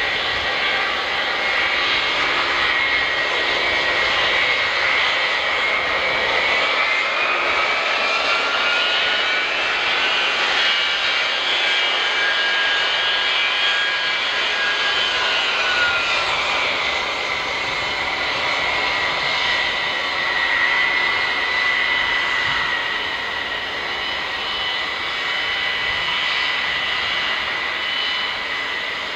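E-3A Sentry's four TF33 turbofan engines whining as the jet taxis at low power, over a steady rushing noise. The whine rises in pitch about six seconds in and falls back about ten seconds later.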